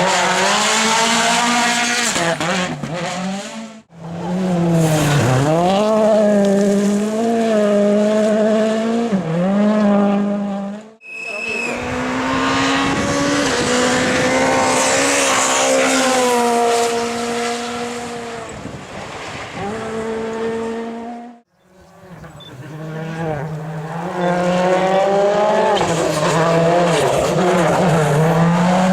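World Rally Championship cars' engines revving hard, their pitch climbing and dropping with the gear changes and throttle. The sound comes in several separate passes that break off abruptly about 4, 11 and 21 seconds in.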